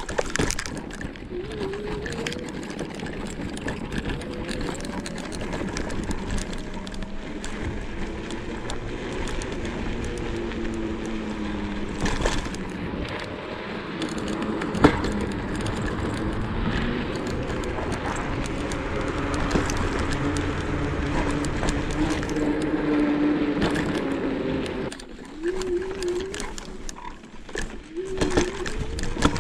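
Joyor Y6S electric scooter ridden over a sandy, bumpy forest track: the motor whines in pitch that rises and falls with speed, over tyre and frame rattle, with a sharp knock about fifteen seconds in. The sound drops lower for a few seconds near the end.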